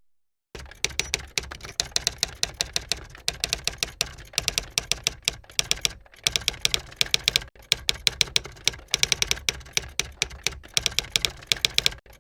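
A fast run of light, sharp clicks, several a second with short pauses, like typing on a keyboard, over a faint low steady hum.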